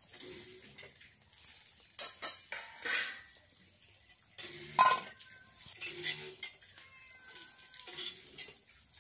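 Stainless-steel plates and bowls clattering against each other and against an aluminium cooking pot: a series of sharp metal clinks with a short ringing after them, the loudest about five seconds in, as a steel plate is set on the pot as a lid.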